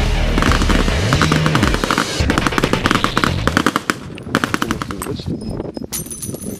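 Several automatic rifles firing together in rapid overlapping volleys, a dense string of shots that thins to scattered single shots after about four seconds.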